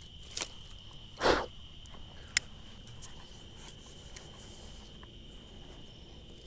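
Steady high chirring of a cricket chorus, with a brief rustle about a second in and a single sharp click a second later.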